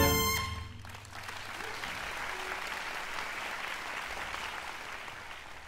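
A wind band's held final chord of saxophones and brass cuts off about half a second in and rings briefly in the hall, then the audience applauds steadily, fading near the end.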